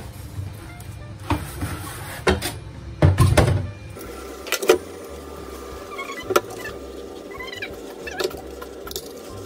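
Dishes being washed by hand in a stainless steel sink: scattered clinks and knocks of a spoon and bowls against the sink, most of them about three seconds in, and short high squeaks of wet crockery being rubbed clean near the end.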